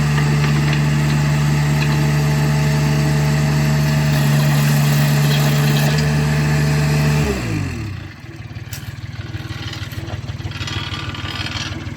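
Skid steer loader engine running at high, steady revs, then throttling down about seven seconds in and settling into a quieter, rapid idle.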